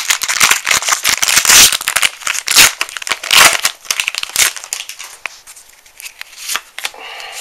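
A Pokémon Flashfire booster pack's foil wrapper crinkling and tearing as it is ripped open by hand, a dense run of loud crackles for about four and a half seconds. After that come fainter rustles and clicks as the cards are handled.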